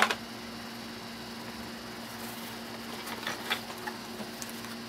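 Hard plastic knocks and clicks from a toy cash register and its parts being handled: one sharp knock at the start, then a cluster of lighter clicks about three seconds in, over a steady low hum.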